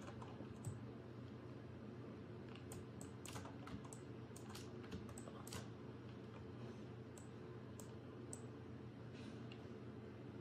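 Faint, scattered clicks from a computer mouse and keyboard, bunched between about two and six seconds in and sparser after, over a steady low hum.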